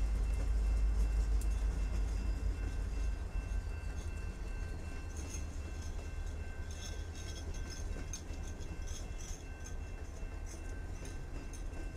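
Canadian Pacific diesel freight train rolling past: the locomotives' low engine rumble with rail-car wheel noise and a few faint steady high tones. The rumble eases a little about three seconds in, and light clicks come through in the second half.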